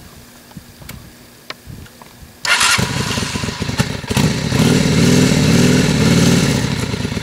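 V-twin cruiser motorcycle engine started up: quiet at first, then it catches suddenly about two and a half seconds in, is revved for a couple of seconds, and eases back toward idle near the end.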